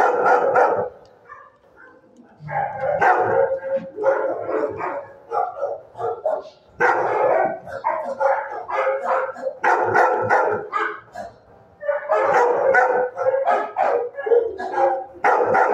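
Dog barking in bouts of rapid barks a few seconds long, with short pauses between, in an animal-shelter kennel.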